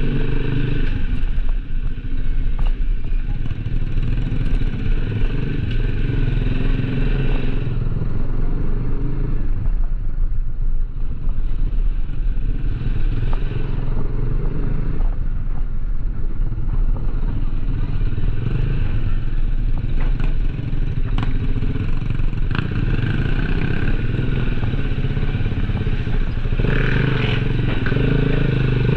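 Motorcycle engine running steadily while being ridden, with a constant low drone and road rumble.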